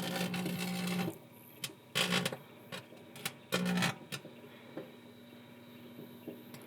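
Tinfoil arcing inside a running microwave oven: bursts of buzzing, crackling sparks, one of about a second at the start and shorter ones about two and three and a half seconds in, with single sharp snaps between them. The sparking shows the foil picking up the microwave energy and heating.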